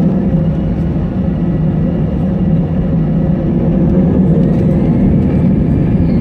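Airplane engines running with a steady low rumble during take-off.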